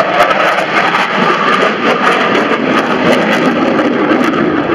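Fighter jet flying a display pass, its jet engines making a loud, steady rushing noise.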